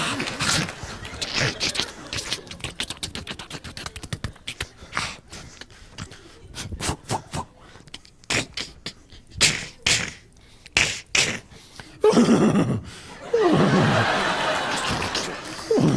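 Mouth-made sound effects performed into a handheld microphone. First comes a long, irregular string of clicks and pops, then from about twelve seconds in, about three loud vocal sounds that slide down in pitch.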